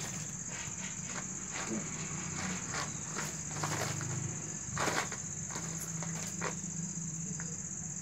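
Crickets chirring in a steady high-pitched trill, with several short crinkling rustles of a woven plastic sack as the cats pounce and scramble on it.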